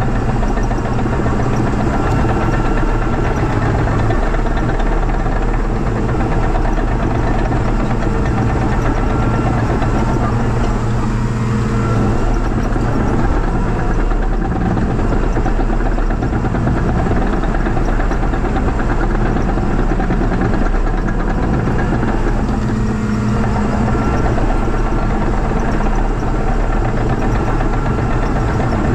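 Caterpillar 953C track loader's diesel engine running steadily, its exhaust coming through a broken muffler.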